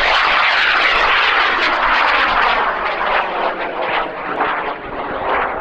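Roar of an N1100 high-power rocket motor burning Black Diamond propellant as the rocket climbs: a loud, even rushing noise laced with crackle, easing slightly in the last couple of seconds.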